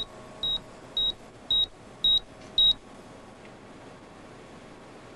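Computer terminal beeping: six short, high beeps at one pitch, about half a second apart, each louder than the last, then stopping. It is the terminal's alert that a user has just logged in.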